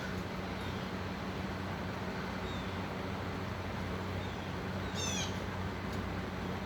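Steady outdoor background noise with a low, even hum, and a short high chirp about five seconds in.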